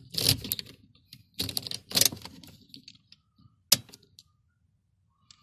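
A freshly cut metal car key clicking and scraping as it is pushed into and pulled out of a 1997 Toyota Camry's ignition lock. There are two short stretches of rattling, then one sharp click about three and a half seconds in.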